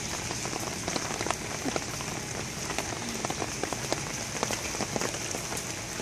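Steady rain falling, with many separate drops ticking close by.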